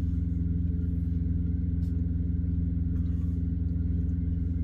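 Semi truck's diesel engine idling steadily, heard from inside the cab, with a couple of faint ticks.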